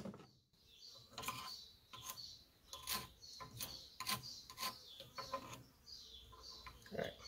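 A screwdriver scraping and prying at the rusted metal of a seized JLO 292 two-stroke engine near its cylinder: a string of short, faint scrapes and clicks, about two a second.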